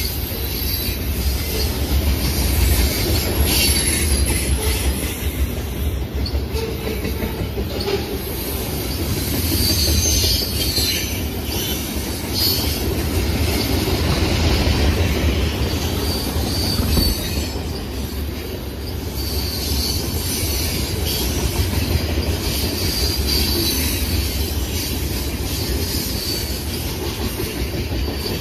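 Freight cars of a mixed freight train rolling past: a steady rumble and clatter of steel wheels on the rails, with a high-pitched wheel squeal rising now and then.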